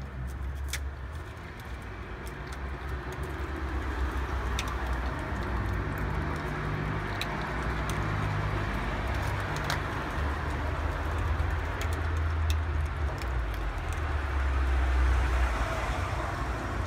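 Miniature pinscher crunching and gnawing a hard dog-biscuit egg shell, scattered sharp cracks. A steady outdoor background noise with a low rumble runs underneath and is the loudest part.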